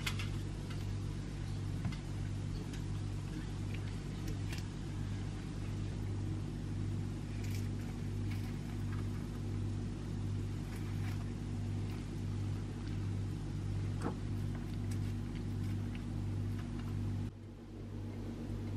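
A steady low machine hum runs throughout, with a few light clicks and rustles of a spoon and croissants being handled. The hum drops and changes briefly near the end.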